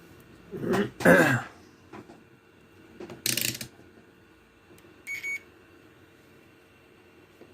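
A person clears their throat loudly about a second in, then gives a second short throat-clearing cough a little after three seconds. Near five seconds a multimeter gives a short electronic beep.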